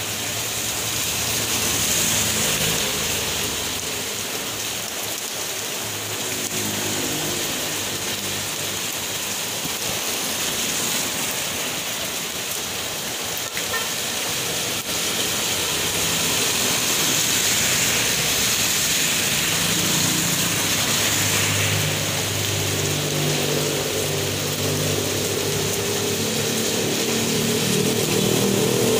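Steady rain falling on a wet street, with vehicle engines passing on the road: one early on and another growing louder over the last several seconds as it approaches.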